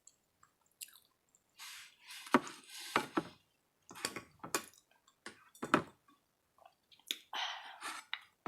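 A person chewing food close to the microphone, with wet mouth sounds and a run of short, sharp clicks and smacks.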